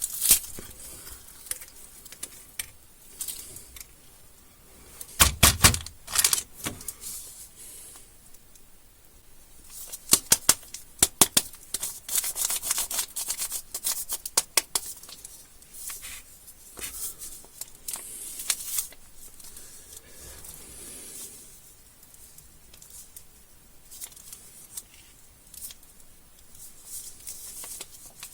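Crinkling and rustling of plastic candy wrappers and packaging being handled and torn open, broken by clusters of sharp clicks and taps. The loudest come about five seconds in and again around ten seconds in.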